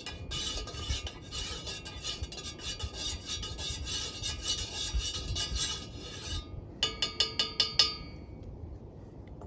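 A metal spoon stirring coffee briskly, scraping and clinking against the inside of a stainless steel YETI mug. Near the end the stirring stops and the spoon gives a quick run of about eight ringing taps on the mug.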